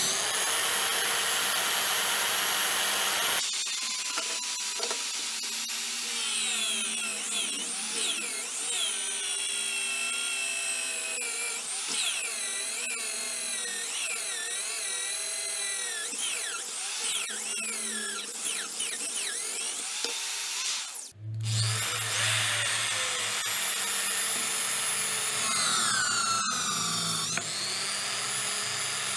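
Electric hand drill mounted in a drill press stand, its motor whining and wavering in pitch as the bit is fed into a metal bar. After a sudden break about two-thirds of the way through, it drills into a block of wood.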